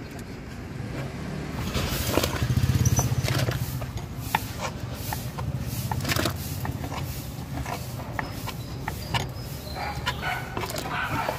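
Knife slicing boiled beef on a thick wooden chopping board, the blade tapping the wood in sharp, irregular clicks. A steady low rumble runs underneath, swelling about two to three seconds in.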